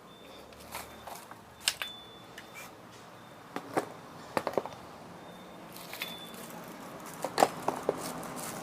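Handling noise of spinning fishing reels and their boxes: scattered light clicks and knocks as they are picked up and set down, the loudest near the end.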